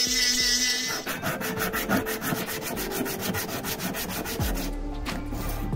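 A rotary tool's burr whines as it grinds a brass hex-nut ring for about the first second. Then the brass ring is rubbed back and forth on a sheet of emery paper in quick, even strokes.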